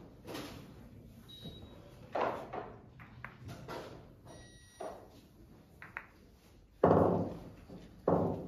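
Billiard balls knocking together and against the cushions during a boccette game, a string of sharp knocks and thuds in a large hall. The loudest knock, with the longest ring, comes about seven seconds in.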